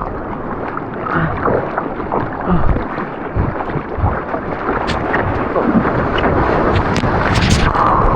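Surf water rushing and splashing, with wind buffeting on the microphone of a surfer's action camera, growing louder toward the end.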